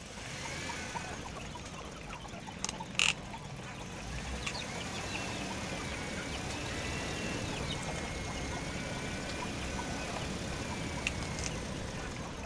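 Huina RC excavator's small electric motors running as the arm and bucket move, with a thin wavering whine through the middle and a few sharp clicks, one loud about three seconds in.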